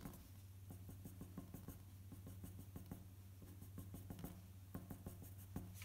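Mechanical pencil scratching on paper, faint: a quick run of short strokes, several a second.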